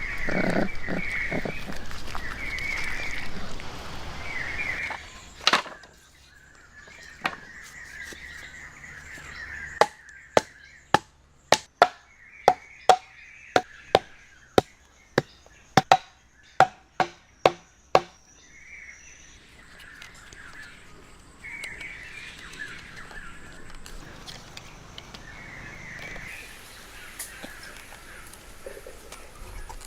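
A run of about a dozen sharp knocks, roughly two a second, each with a short ring, after a single knock a few seconds earlier.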